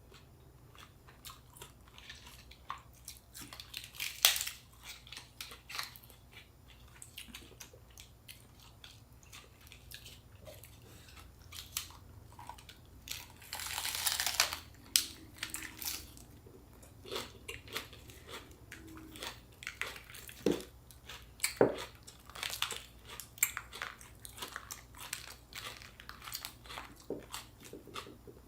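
Close-up eating sounds: biting and chewing fresh spring rolls with raw vegetables, a steady run of small crisp crunches and wet mouth clicks. About halfway through comes a louder noisy rustle lasting about a second.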